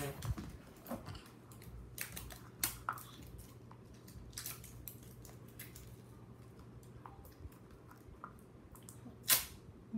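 Small plastic clicks, taps and rustles as a child's fingers twist and pick at a PJ Masks Smashems toy capsule, with one louder sharp click near the end.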